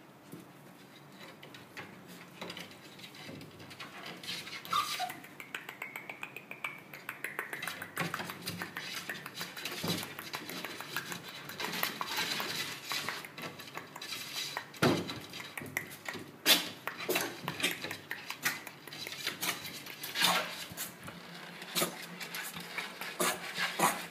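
Husky puppies' claws scratching and scrabbling on a wooden board and tile floor: a busy clatter of clicks, scrapes and small knocks that grows denser after the first few seconds, with a short high whimper about five seconds in.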